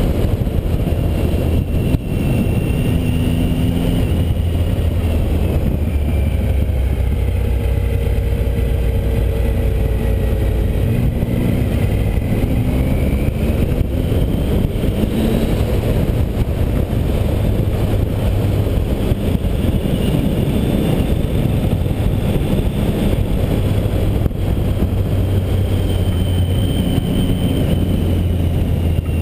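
Triumph Tiger 800 XC's three-cylinder engine running while riding, its pitch rising and falling as the rider works the throttle through the bends, over a heavy rush of wind and road noise on the bike-mounted microphone.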